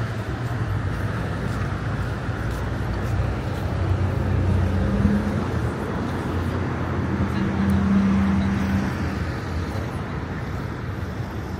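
Street traffic: motor vehicles running past, with a low engine hum that swells twice, about four and eight seconds in.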